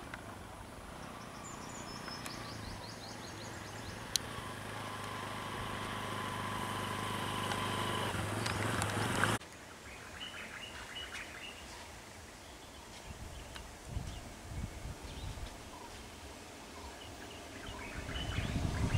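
A motorcycle engine running as it approaches, growing steadily louder, then cutting off suddenly about nine seconds in. Birds chirp over it early on. Afterwards there is quieter outdoor ambience, with bird chirps and a few low thumps.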